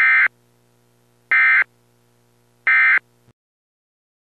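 Emergency Alert System end-of-message signal: three short, identical screeching digital data bursts about a second and a half apart, marking the end of the alert. The faint hum under the bursts cuts off just after the third burst.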